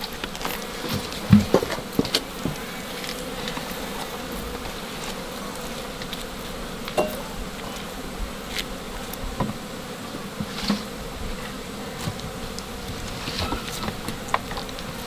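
Honeybees buzzing steadily around an opened hive frame, with scattered short clicks and scrapes as a knife cuts through the wax honeycomb.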